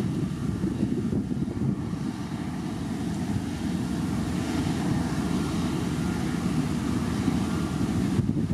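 Komatsu motor grader's diesel engine running steadily under load as its blade pushes stone and soil, with wind buffeting the microphone.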